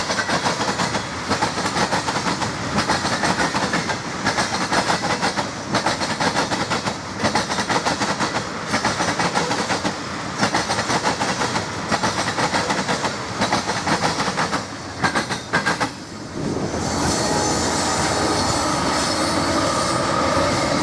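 Freight train of loaded ethanol tank cars rolling past, wheels clicking in a steady rhythm over the rail joints. About sixteen seconds in, the clicking gives way to a steadier rolling sound with a thin, high wheel squeal.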